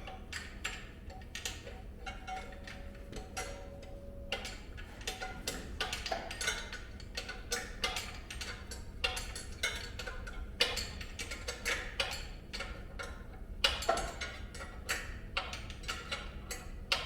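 Runs of quick, irregular metallic clicks and ticks from a hand wrench working a 14 mm bolt.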